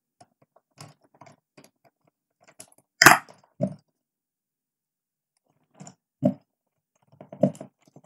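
Plastic switch-socket board and its wires being handled: scattered clicks and knocks, the loudest a sharp knock about three seconds in.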